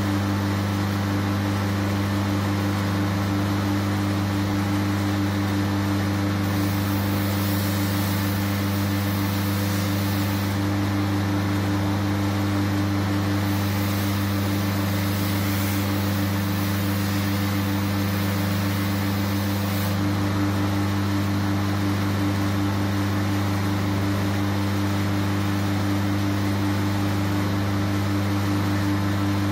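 Belt grinder's electric motor running with a steady hum, while a steel sabre blade is pressed against the moving abrasive belt in several passes, each adding a hissing grind. The grinding is opening the edge bevel of the blade.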